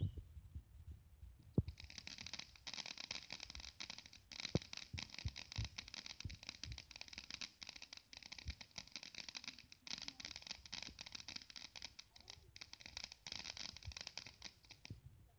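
Ground fountain firework spraying sparks: a steady, fast-crackling hiss that starts about two seconds in and cuts off shortly before the end as the fountain burns out, with scattered low thumps underneath.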